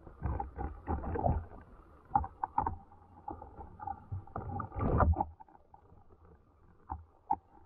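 Muffled underwater sound from a submerged camera: irregular clicks and knocks over a low rumble of moving water. The sound comes in clusters, loudest in the first second and a half and again around five seconds in.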